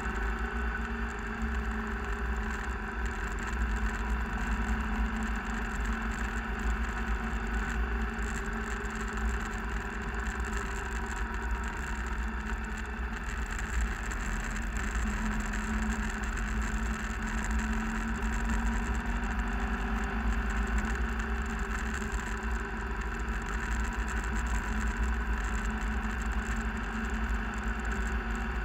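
Vehicle driving on a gravel road: a steady engine hum over a constant low rumble from the tyres and road, unchanging throughout.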